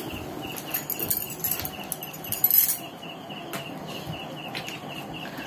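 Playing cards being dealt onto a cloth-covered bed: soft slaps, flicks and clicks of the cards. Behind them a high chirping repeats about five times a second and stops about four and a half seconds in.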